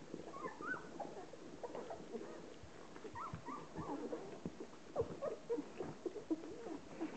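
Ten-day-old Hovawart puppies squeaking and whimpering in short rising and falling squeals, with wet licking and smacking clicks as the mother dog washes them.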